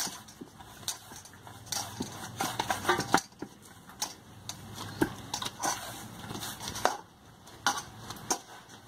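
Hands kneading stiff puri dough in a stainless steel bowl: irregular soft squishes of the dough being pressed and folded, with light knocks of the steel bowl.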